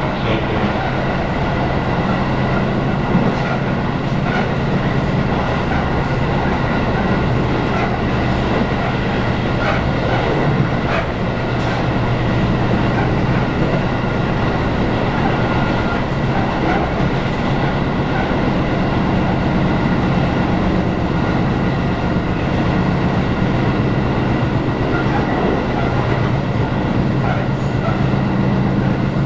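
Interior running noise of a Tobu 10000 series train car at speed: a steady rumble overlaid by a rapid, rhythmic pounding from flat spots worn into the wheels, with a few brief clicks.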